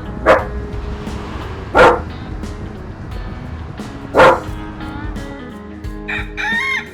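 A dog barks three times, a second or two apart, over background music.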